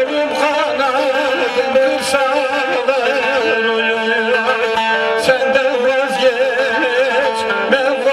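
Two bağlamas (long-necked Turkish saz) playing an instrumental passage of a folk song: a plucked melody with quick ornaments over steady drone notes.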